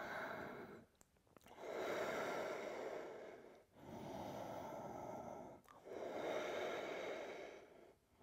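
A person's slow, audible breathing: four long, even in- and out-breaths of about two seconds each, with short pauses between them.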